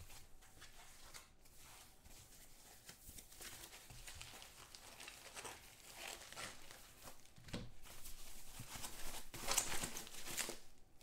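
Thin foam packing sheet crinkling and rustling as it is unwrapped and handled, louder in the last few seconds.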